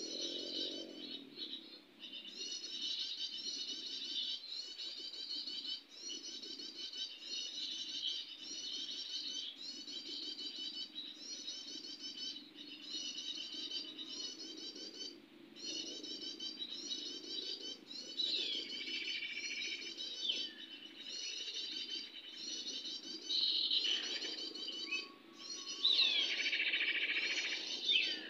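Small birds calling: a high, rapid trilled phrase repeats over and over, about once a second, and louder sweeping calls come in near the end.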